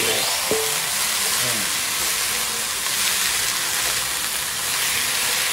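Bean sprouts stir-frying in a hot titanium wok, sizzling and hissing steadily as a splash of water hits the hot pan and turns to steam, while a wooden spatula tosses them.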